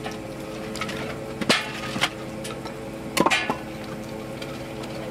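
Wooden cribbing blocks clunking against each other as they are pulled out from under a boat hull: sharp knocks about a second and a half in, at two seconds and around three seconds. A steady engine hum runs underneath.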